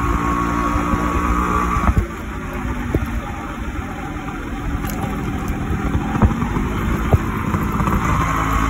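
Yamaha RX100's two-stroke single-cylinder engine running under way, with wind rumble on the microphone. The engine eases off about two seconds in and builds again toward the end.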